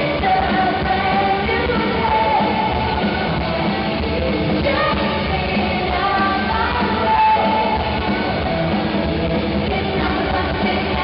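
Live pop-rock song played through a concert sound system, a lead vocal singing over a full band.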